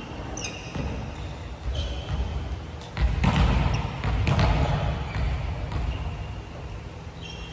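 Thuds of a volleyball on a wooden gym floor and short squeaks of court shoes. About three seconds in there is a sharp knock, then a louder stretch of noise.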